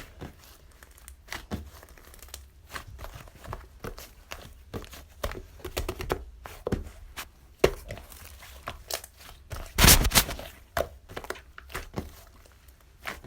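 Irregular clicks, taps and crinkling of objects being handled close by, with a louder rustling burst about ten seconds in.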